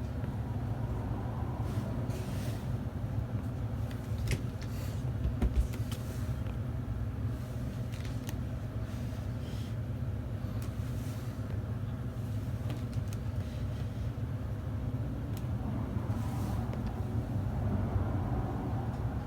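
Steady low rumble, like a running vehicle or machine heard in the background, with a few light clicks and a single thump about five and a half seconds in.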